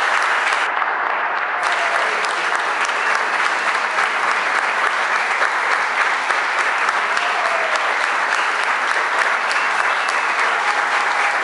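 Audience applauding: a steady, sustained round of clapping from a seated crowd.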